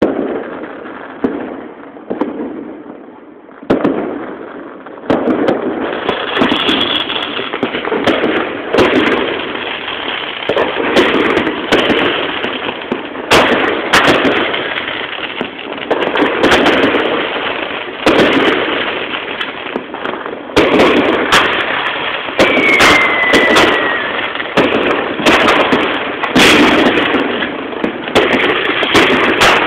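Fireworks going off: a continuous crackle with frequent sharp bangs, and a short falling whistle about two-thirds of the way through.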